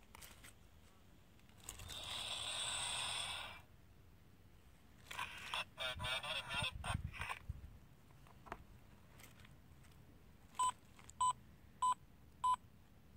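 Sound chip of a children's push-button sound book playing its effects through a small speaker: a rocket whoosh lasting about two seconds, then a crackly radio-headset sound for the astronaut, then four short, evenly spaced satellite beeps near the end.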